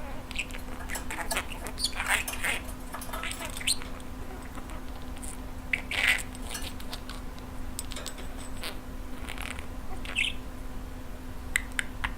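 Budgerigar chattering quietly, with scattered short chirps and clicky squeaks over a steady low hum.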